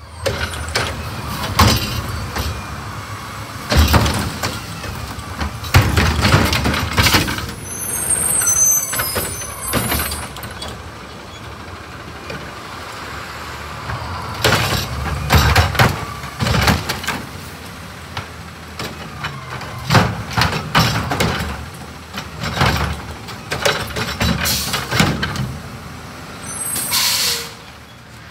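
Autocar Xpeditor refuse truck with a Curotto-Can carry can working carts: the engine runs under repeated knocks and bangs as carts are lifted and tipped. There are high squeals about eight seconds in and a short burst of air-brake hiss near the end.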